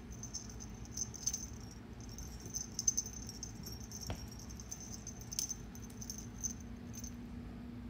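Light, quick jingling and rattling ticks as a Bengal kitten bats at, pounces on and bites a feather wand toy, with a soft thump about four seconds in as it lands or rolls on the carpet.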